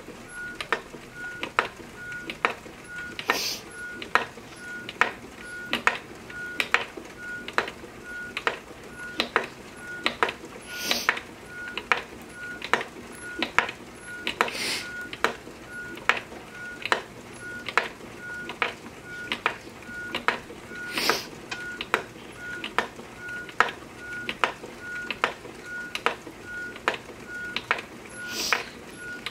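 Wooden spinning wheel turning under steady treadling, clicking evenly about twice a second, with a faint squeak repeating in the same rhythm and a few brief louder hisses along the way.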